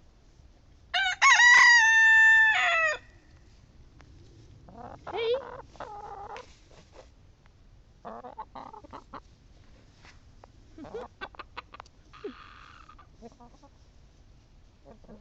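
A rooster crows once, a loud call lasting about two seconds that drops in pitch at the end. Hens cluck softly afterwards, with a few light clicks.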